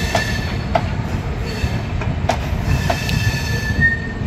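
Red-and-grey passenger coaches of an arriving express train rolling slowly past with a steady low rumble. Irregular sharp clacks come as the wheels pass over rail joints, and a high, steady metallic squeal rises near the start and again near the end.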